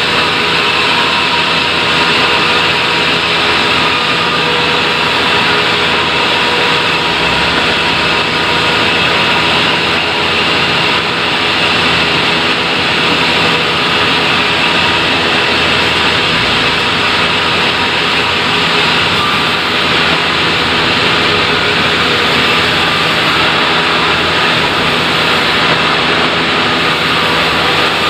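Sawmill saw running steadily through acacia logs being cut, a loud even machine noise with a constant hum and whine.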